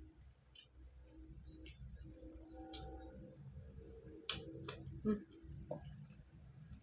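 Eating sounds: chewing with scattered small clicks and smacks, and a few sharper clicks about three and four to five seconds in.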